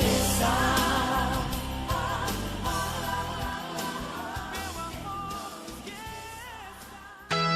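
Sertanejo song with melodic singing over the band, fading out steadily. About seven seconds in it cuts to the opening guitar of the next song.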